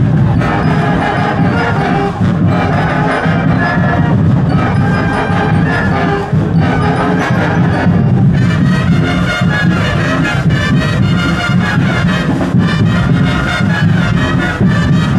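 Marching band music playing continuously with a steady beat, the drumming growing busier about halfway through.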